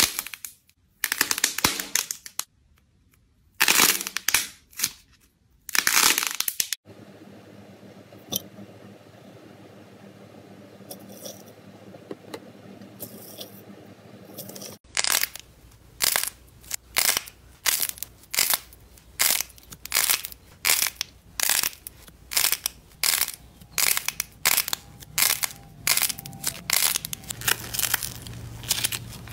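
Slime being pressed and squeezed by hand: a few loud presses in the first seven seconds, a quieter stretch, then from about halfway a steady run of presses a little more than once a second.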